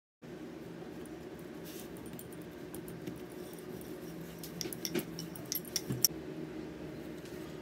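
Wooden rolling pin rolling out dough on a floured marble board, with a few light clicks and knocks of the pin against the stone in the second half, one sharper knock shortly before the end, over a steady low hum.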